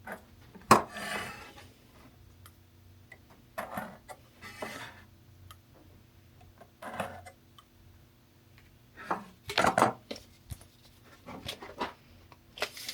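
Walnut boards handled on a workbench: a sharp wooden knock about a second in, then scattered scrapes and clatters of wood against wood and the bench.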